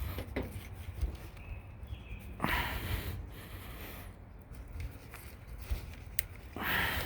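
Two heavy exhales through the nose, about two and a half seconds in and again near the end, over faint rubbing and handling noise while spline is forced into a screen frame's channel.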